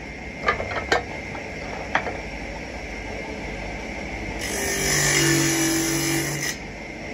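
An electric motor-driven wheel running, with a few sharp knocks in the first two seconds. About halfway through, a wooden axe handle is pressed against the spinning wheel for about two seconds, giving a loud grinding hiss over the motor's steady tone as the handle's end is shaped.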